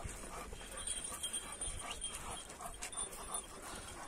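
A dog making faint short whimpering sounds, repeated several times over a few seconds, with a few light clicks among them.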